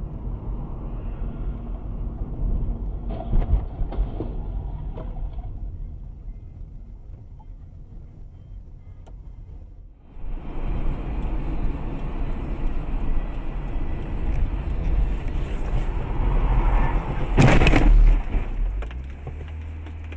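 Road and engine noise inside a moving car, picked up by dashcams, with a few light knocks in the first few seconds. About seventeen seconds in, a loud bang lasting about half a second stands out above the road noise.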